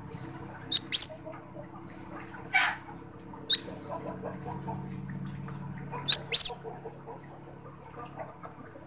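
Sunbird ('kolibri wulung') giving short, sharp, high-pitched chip calls: a quick pair about a second in, two single calls a second apart around the middle, and another quick pair near the end, over a faint steady hum. These are the calls used as a lure for other sunbirds.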